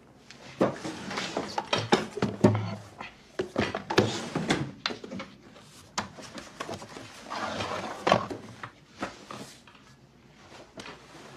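Hands handling a folder: it is opened and its pages are leafed through, with irregular rustles, taps and clicks.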